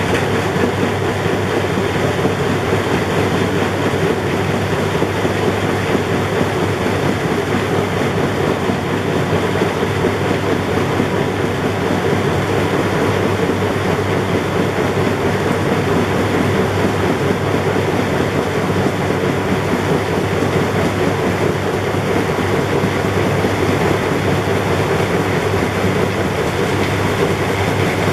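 Philips SlimStar HN3156 washing machine running with its back panel off: the belt-driven drum and its pulley turning, a loud, steady mechanical running noise that does not change.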